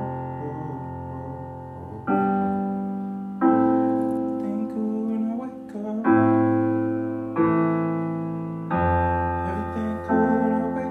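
Solo piano music: sustained chords struck a new one every second or two, each ringing out and fading before the next.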